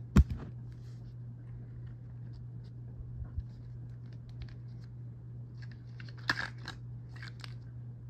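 Hands handling a toy's batteries and plastic battery compartment: a sharp knock just after the start, then scattered clicks and rustles, with a quick cluster of clicks a little after six seconds in. A steady low hum runs underneath.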